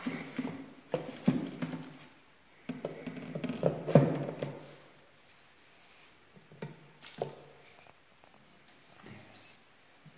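Black plastic vacuum extension tubes knocking and clicking against the body of a Bosch GAS 15 vacuum cleaner as they are pushed into its holder clips. There are a run of irregular knocks, the loudest about four seconds in, and a few lighter clicks later.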